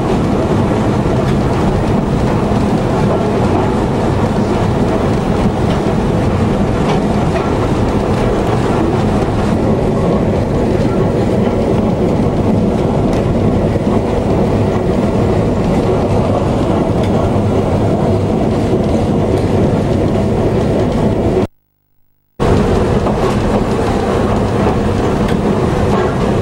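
Original County Donegal Railways diesel railcar running steadily along narrow-gauge track, heard from inside the car: a steady engine drone over the rumble of the wheels on the rails. The sound cuts out for about a second near the end, then carries on unchanged.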